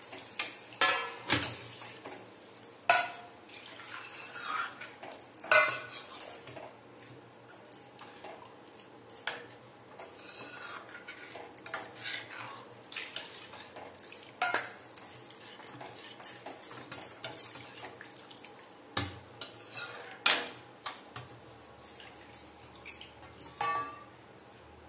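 Slotted steel ladle stirring a besan-and-buttermilk kadhi mixture in a metal kadhai, with irregular clinks and scrapes of metal on metal.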